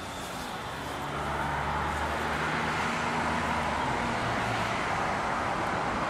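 A motor vehicle's engine hum comes in about a second in and fades after about four seconds, over steady outdoor traffic noise.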